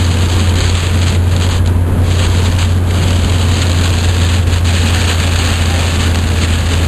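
A Hyundai's engine and tyres making a steady low drone at highway speed inside the cabin, under the even hiss of heavy rain and road spray on the car.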